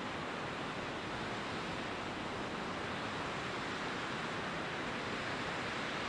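Steady rush of white water from a mountain stream.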